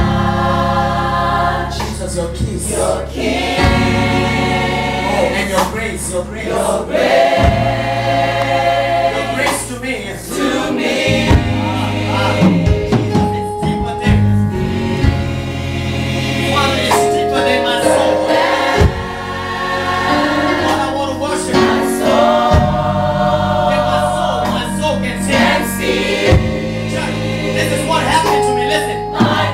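Mixed choir of men and women singing a gospel song, over low held accompanying notes that change every few seconds.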